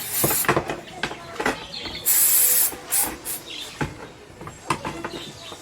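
Two short hissing sprays, one near the start and one about two seconds in, with scattered clicks and knocks from handling the roti maker's parts during cleaning.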